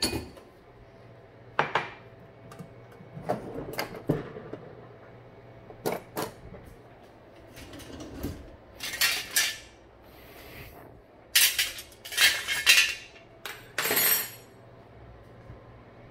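Kitchen dishes and cutlery clinking and knocking during breakfast preparation: a dozen or so separate clatters at irregular intervals, busiest in the second half, with a brief hiss about ten seconds in.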